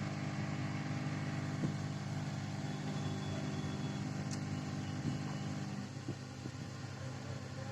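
Hot air rework gun blowing steadily with a low electric hum, heating solder paste through a BGA stencil to reflow it into new solder balls on an eMMC chip. The hum eases a little about six seconds in.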